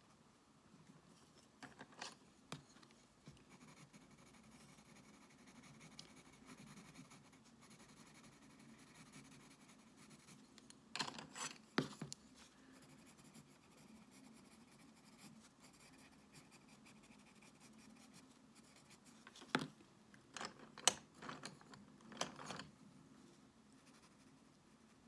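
Coloured pencil scratching softly on sketchbook paper as an area is shaded in. Short clusters of clicks and taps come about two seconds in, around eleven seconds and again around twenty to twenty-two seconds, as pencils are set down on the paper and picked up.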